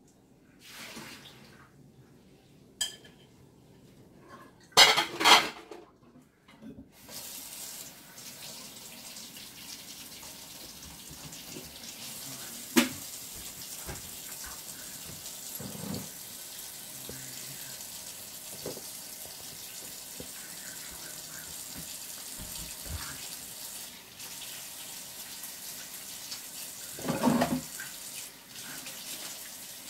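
Kitchen faucet running into a sink while hands are washed: a steady rush of water starts about seven seconds in, with a few clinks and a louder splash near the end. Two loud knocks come just before the water starts.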